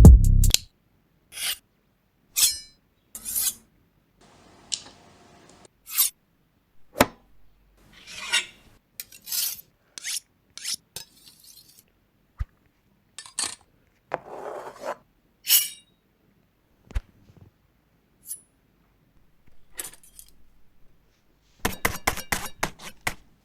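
A run of separate knife sound effects with silent gaps between them: short blade scrapes and sharpening strokes, slashes and metallic clinks. Near the end comes a quick clatter of metal clicks, like knives dropped together.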